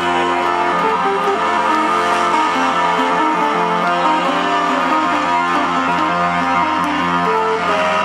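Loud live electronic dance music from a festival sound system, heard from the crowd: a dense, steady mix carrying a melody of short stepping notes.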